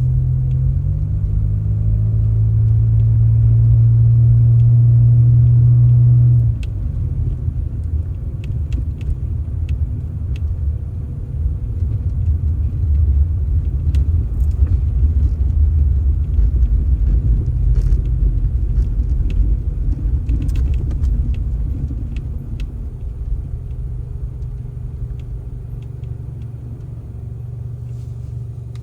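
A heavy engine running with a loud, steady deep hum that cuts off abruptly about six seconds in. A rough low rumble carries on after it, with scattered clicks and knocks, and slowly fades.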